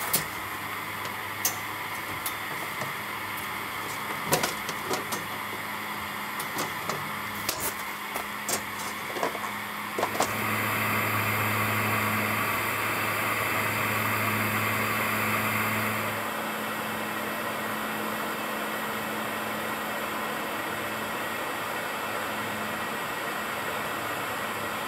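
Steady hum and roar of a lit burner-type heater, with clinks and clatter of gear being handled and set down during the first ten seconds. The hum is louder for several seconds from about ten seconds in.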